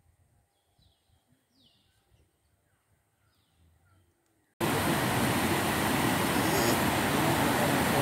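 Faint, sparse bird chirps, a few short falling calls, then about four and a half seconds in the steady loud rush of cascading waterfall water starts abruptly and fills the rest.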